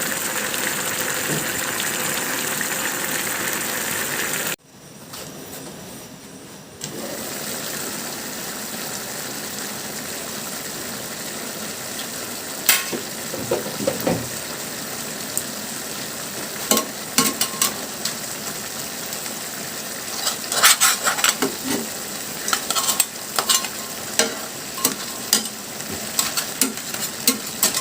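Crab and bamboo shoots sizzling in a pan. The sizzle drops away suddenly about five seconds in and comes back a couple of seconds later. From about twelve seconds on, a spatula clicks and scrapes against the pan as the food is stirred, most often in the second half.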